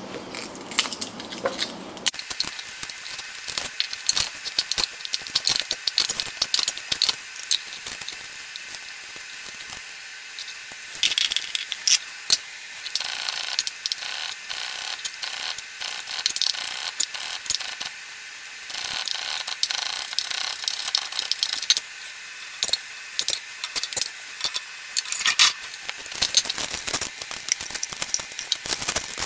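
Papery garlic and shallot skins crackling as they are peeled by hand, mixed with chef's knife strokes on a wooden cutting board: a dense, irregular run of small clicks and crackles.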